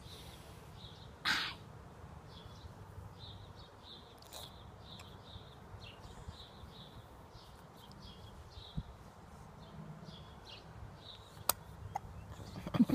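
Small birds chirping over and over in the background, with one short louder sound about a second in and a couple of faint clicks near the end.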